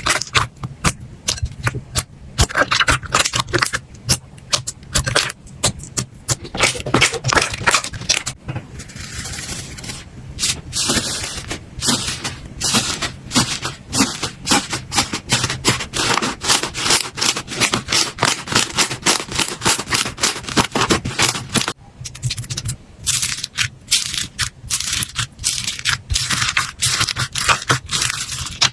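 Slime being squeezed and pressed by hand, making a dense run of crackling, popping clicks. Part way through the sound changes abruptly, losing its lower, squelchier part and leaving mainly sharp crackles.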